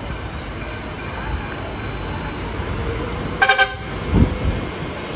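A vehicle horn gives a short toot in three quick pulses about three and a half seconds in, over steady street and engine noise; a low rumble swells briefly just after it.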